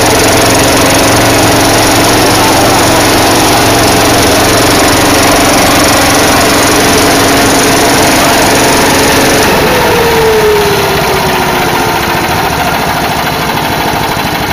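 Small Honda petrol engine driving a road dust blower at high speed, its steady engine note under a loud rush of air. About ten seconds in, the pitch falls and the engine and blower settle to a lower, quieter speed.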